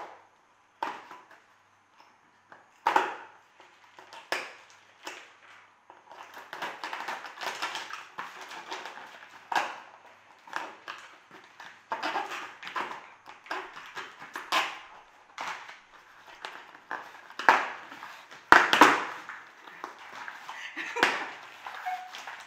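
A cardboard shipping box being opened by hand: packing tape cut and torn, and cardboard flaps and paper crackling and ripping in irregular bursts, loudest a few times near the end.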